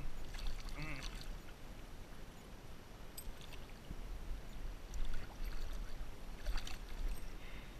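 Water splashing in several short bursts as a small hooked fish thrashes at the surface and is grabbed by hand, under a low steady rumble.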